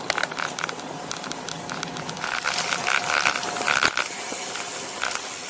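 Road bike riding along, heard from a handlebar-mounted camera: a steady hiss of tyre and wind noise with many sharp rattling clicks from the bike, a little louder about two seconds in.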